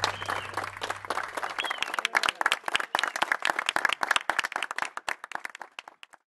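Crowd applauding with dense clapping that thins out and fades away near the end.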